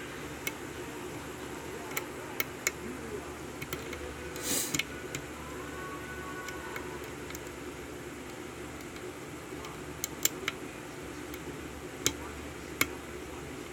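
Scattered small, sharp clicks of a lock pick and tension wrench working the pins of a 5-pin Corbin Euro cylinder during single-pin picking, with a short hiss about four seconds in, over a steady background hum.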